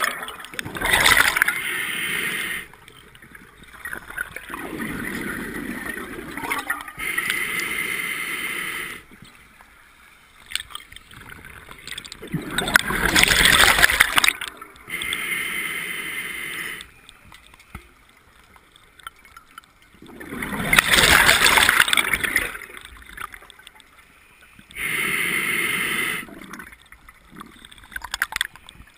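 Scuba diver breathing through a regulator: a hiss with a faint whistle on each inhale, then a gurgling rush of exhaust bubbles on each exhale. The breaths are slow, a full cycle about every eight seconds.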